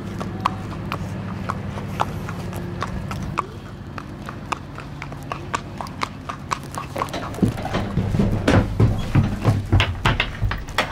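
A pony's hooves clip-clopping as it walks on hard paving, then heavier, hollow thuds from about seven seconds in as it steps up the ramp into a horse trailer. A steady low hum runs under the hoofbeats for the first three seconds or so, then stops.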